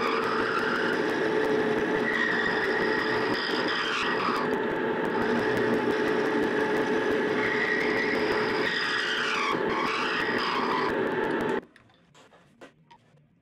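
Boxford milling machine running, its end mill cutting a flat into a shaft as the table feeds. A steady whine with the cutting sound's pitch rising and falling twice, then the sound cuts off suddenly near the end.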